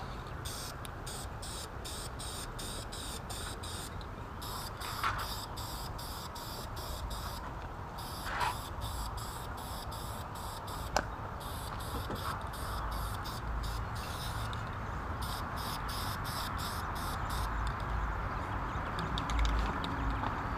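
Aerosol can of engine enamel being shaken and sprayed onto an engine cooling fan: a steady spray hiss with a fast, regular ticking rattle that stops briefly a few times.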